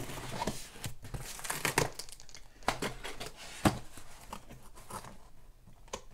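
Box cutter slicing the plastic wrap and tape on a cardboard mailer, then the plastic wrap being torn and peeled back, crinkling and crackling irregularly. One sharp crack stands out about three and a half seconds in, and the crinkling grows quieter near the end.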